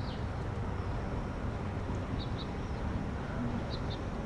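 Short high bird chirps, mostly in pairs a fraction of a second apart, repeating every second or two over a steady low rumble.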